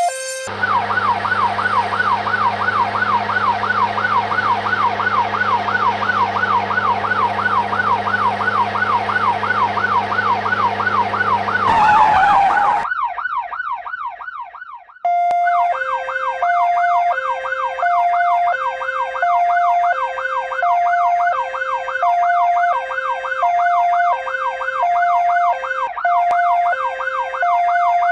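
Electronic sirens of toy emergency vehicles. A fast rising-and-falling wail with a steady low hum beneath it runs through the first half, ending in a brief loud rush of noise. The wail then dips and fades, and a two-tone high-low siren joins it when it returns.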